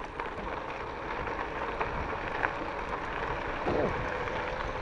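Bicycle tyres rolling over a dirt and gravel track, a steady crunching rush with scattered small clicks and rattles from the bike, and wind on the microphone.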